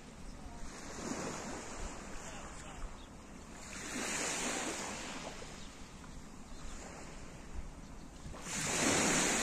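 Small waves breaking and washing up a pebble beach: three swells of surf hiss, the last one the loudest, near the end.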